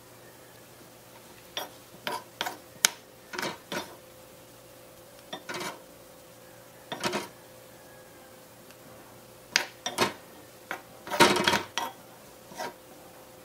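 Small wooden spoon scraping and knocking in a miniature aluminium wok and against a small ceramic dish as cooked vegetables are spooned out. It comes as scattered short clicks and scrapes, with the busiest run near the end, over a faint steady hum.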